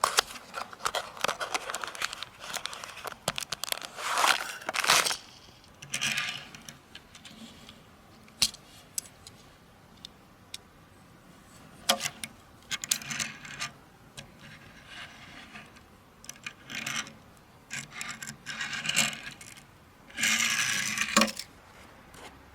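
Unboxing handling of a boxed die-cast toy car: packaging rustling, tearing and scraping in irregular bursts, with sharp clicks in between.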